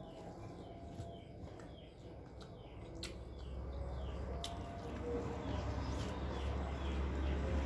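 Small birds chirping repeatedly in quick short notes, with a few sharp clicks and a low rumble that grows louder toward the end.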